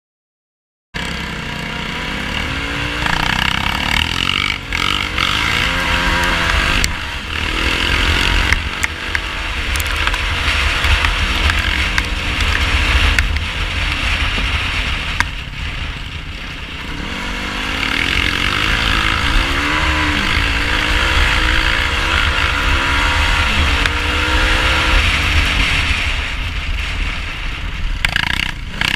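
2018 Yamaha YFZ450R quad's single-cylinder four-stroke engine being ridden hard, its pitch rising and falling over and over as the throttle is opened and shut. It starts about a second in.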